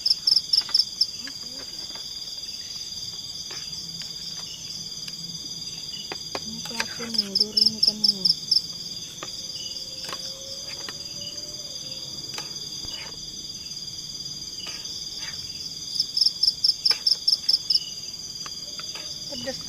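Tropical forest insect chorus at night: crickets keep up a steady high-pitched drone. A louder insect calls over it in three runs of about eight rapid chirps each, at the start, about seven seconds in and about sixteen seconds in.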